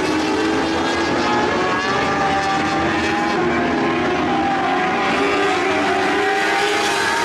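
Several lightning sprint car engines running hard together around a dirt oval, a steady high-revving drone whose pitches rise and fall as the cars lap.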